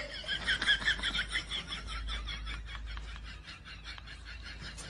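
Rapid, even animal chirping, several short calls a second, loudest at first and fading away.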